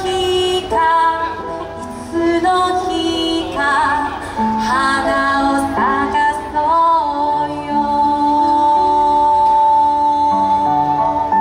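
A woman singing with instrumental accompaniment, her voice sliding between notes and then holding one long note from about seven seconds in until near the end.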